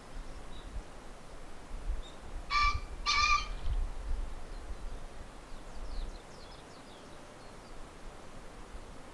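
Male green pheasant crowing: two loud, harsh, honking notes about half a second apart, its territorial "ken-ken" call.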